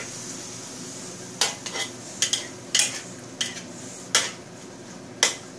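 A spatula scraping and clinking against a wok while prawns, scallops and chicken are stir-fried, over a steady sizzle as the little liquid in the wok fries off. The clinks are sharp and irregular, about eight of them, starting about a second and a half in.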